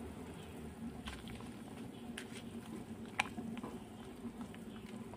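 Chicken boiling in a steel pot of water: a steady low bubbling with a few light clicks, the sharpest about three seconds in.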